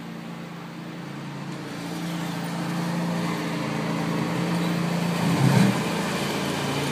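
Steady motor hum of a small motorized kiddie ride-on train, growing louder as it approaches.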